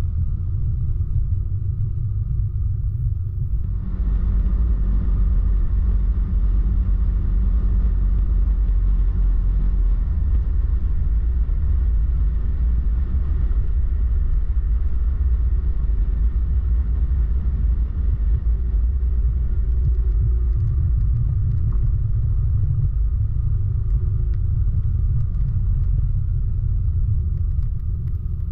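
Motorcycle ride: a steady low rumble of engine and wind on the microphone, with more wind hiss from about four seconds in.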